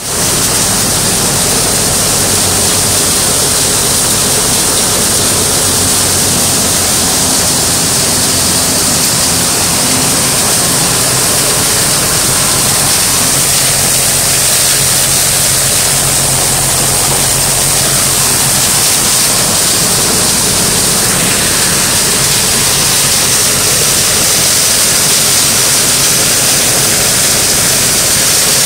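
Zangeer multicrop thresher running steadily, a loud even rushing din with a low steady hum underneath.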